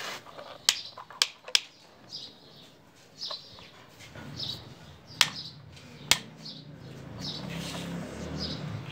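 Sharp plastic clicks and clacks of toy vehicles being handled, three in the first second and a half and two more around five and six seconds in. Small birds chirp over and over, and pigeons coo low from about four seconds in.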